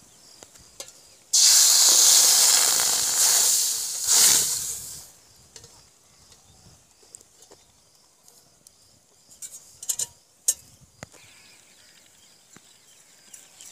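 Raw goat blood poured into hot oil in an iron kadai, sizzling loudly for about four seconds and then dying away. A few sharp knocks follow near the end.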